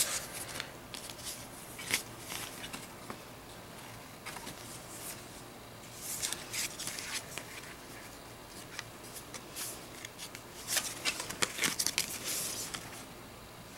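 Rustling and light clicks of cosmetic products and paper packaging being handled in a cardboard box with shredded paper filler, in scattered bursts, with a busier stretch near the end.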